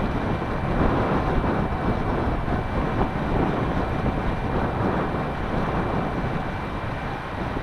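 Wind buffeting the microphone outdoors, a steady rough rumble, with a faint steady high-pitched whine underneath.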